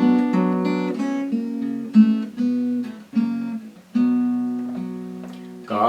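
Acoustic guitar playing an instrumental passage between verses: several strummed chords and picked notes, then one chord struck about four seconds in that rings and fades for nearly two seconds.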